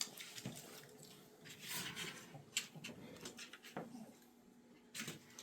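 Dogs eating treats off their plates: faint, scattered mouth noises and light clicks, with a few short noisy bursts.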